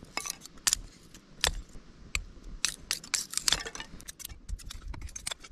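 Dry split kindling being handled and stacked, pieces of wood knocking and cracking against each other in a run of sharp, irregular clicks, busiest a little past the middle.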